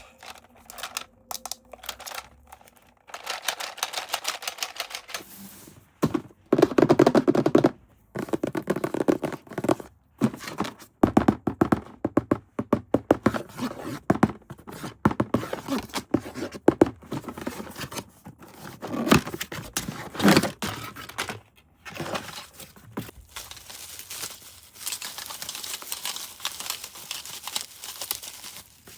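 Toy packaging being opened and handled: plastic and cardboard crinkling and tearing, with scrapes and knocks as parts are handled, in irregular bursts.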